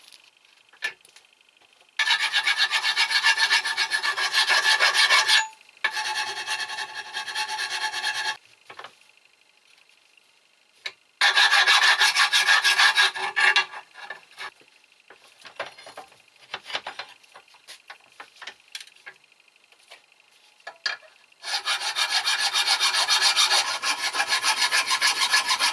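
Hand file rasping rust off the contact surfaces of brake parts, in four bouts of rapid back-and-forth strokes a few seconds each, with light clinks in the pauses between.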